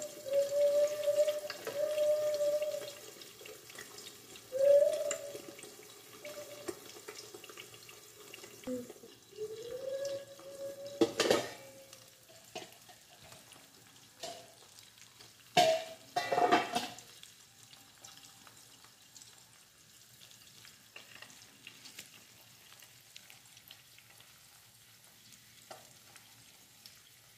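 Eggs frying and sizzling in oil in a granite-coated frying pan under a steel lid. There are a few short wavering tones in the first ten seconds, and sharp metal clanks about eleven seconds in and again around sixteen as the lid is lifted off. After that the frying is faint.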